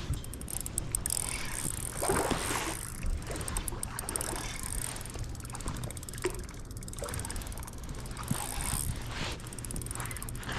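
Spinning reel clicking in short fast runs as a hooked king salmon is played, with water splashing and a low wind rumble on the microphone.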